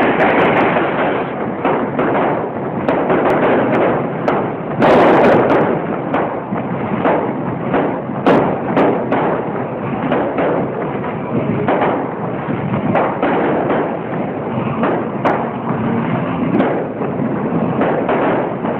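Fireworks display: aerial shells bursting in quick succession, a dense string of bangs, several a second, over a continuous noisy rush, with the biggest bang about five seconds in.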